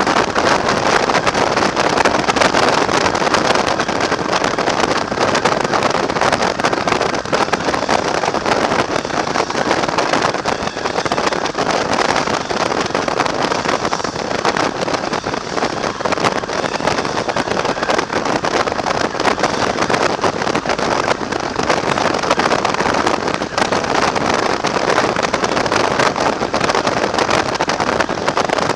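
Steady rush of wind over a motorcycle-mounted camera at road speed, mixed with the bike's running and tyre noise.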